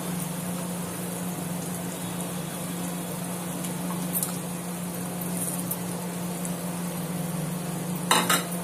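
Masala gravy of yogurt, tomato and oil bubbling and sizzling in a kadai as chicken drumsticks are laid into it, with a steady low hum underneath. A short clatter of a piece or ladle against the pan comes near the end.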